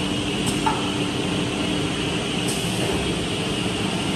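Holztek HT-R4D four-head CNC router running, a steady machine whine and hum with a couple of faint ticks.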